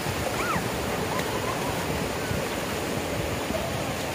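Steady, unbroken wash of sea surf.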